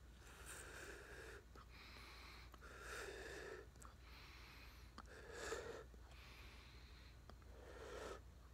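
Faint, slow nasal breathing, a soft breath every second or two, while a large bubblegum bubble is blown up, with a few faint clicks.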